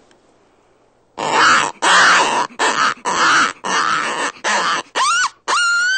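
Yote Buster open-reed predator call blown with the reed slid all the way out, imitating a coyote fight. After about a second of quiet comes a string of short, gravelly growls, then near the end two high, rising pup-distress yelps, the sound of a coyote being bitten.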